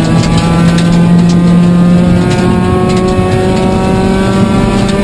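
Toyota Corolla 1.6 rally car's four-cylinder engine running hard at high revs, heard from inside the cabin. Its note climbs slowly, with a short break a little past two seconds in.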